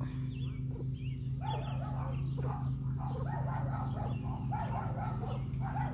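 Puppies yipping and whining in a run of short, high calls that start about a second and a half in, over a steady low hum.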